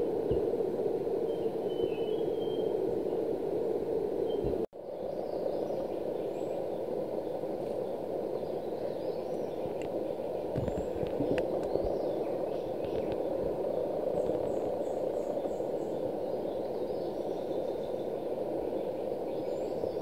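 Rainforest ambience: a steady low rushing noise with faint, scattered chirps of distant birds. The sound cuts out for an instant about five seconds in.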